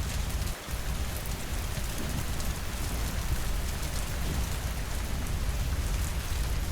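Steady rainfall against windows, an even hiss with a deep low rumble underneath, briefly dipping about half a second in.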